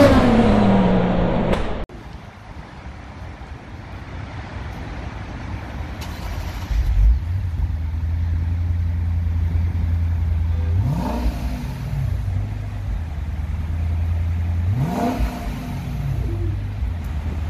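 A car pass-by sound effect with falling pitch, cut off about two seconds in. Then the 2022 Lexus IS 500 F Sport's 5.0-litre V8 starts about seven seconds in, idles steadily, and is revved twice, each rev rising and falling over about a second.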